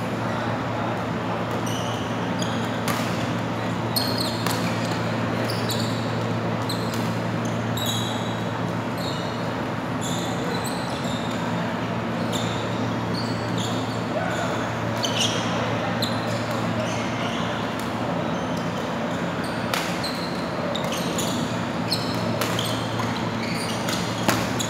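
Badminton play: sharp racket strikes on the shuttlecock and short sneaker squeaks on the court mats, scattered irregularly over a steady low hum.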